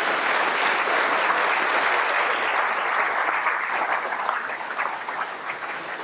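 Audience applauding, a dense, steady clapping that slowly fades in the second half.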